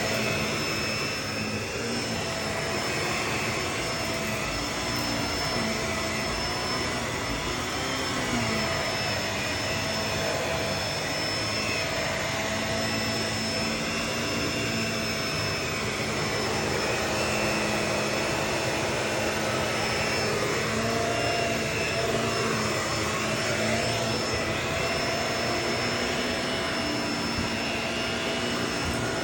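Vacuum cleaner running steadily, a constant rushing noise with a steady motor whine.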